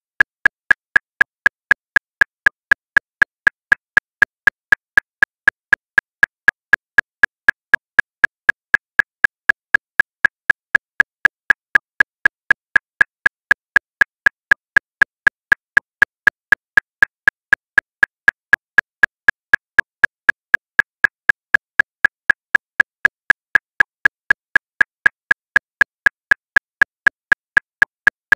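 Metronome clicking at 239 beats per minute: a steady train of about four short, high clicks a second, all equally loud with no accented beat.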